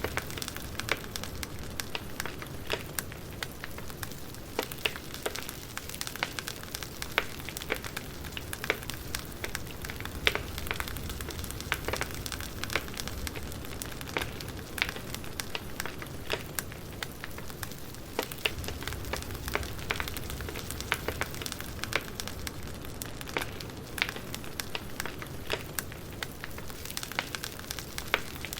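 Campfire burning: a steady crackle of wood with frequent sharp, irregular pops and a low rumble of flame.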